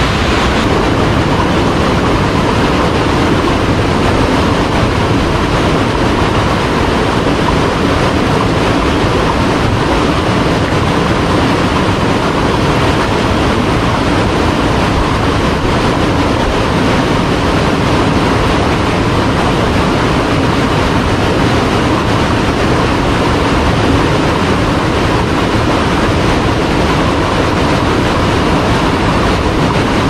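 Steady rush of white water pouring over boulders in a rainforest creek's cascades below a waterfall, loud and unbroken.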